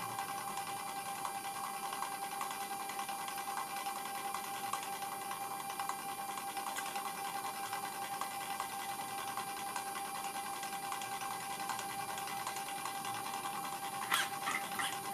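Stepper motor of a 1960s Elliott air nautical miles indicator stepping rapidly to drive its drum counter at the rate set by a −20 V input: a steady, fast mechanical whir with a constant hum. A couple of clicks near the end as the potentiometer knob is gripped.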